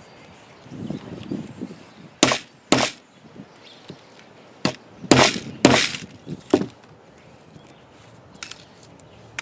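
Hammer blows on a grommet kit's hole cutter set on a tarp: about six sharp strikes, some in quick pairs, then a few lighter taps near the end. The blunt cutter is not cutting through.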